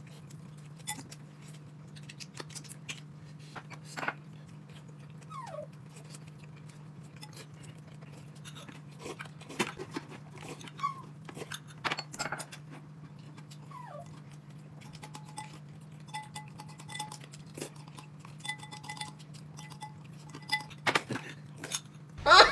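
Quiet scattered clicks and taps of bowls and chopsticks at a meal, over a steady low hum. Twice a short whine falls in pitch.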